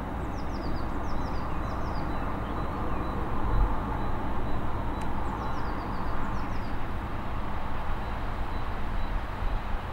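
Steam locomotive hauling a passenger train as it approaches, a steady rumble of exhaust and running gear growing a little louder. Small birds chirp in two brief runs of high, falling notes.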